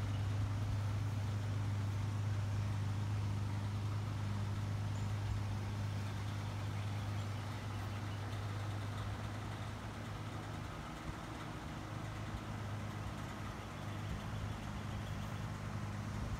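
Outdoor air-conditioning condenser unit running: a steady low hum that weakens after about ten seconds.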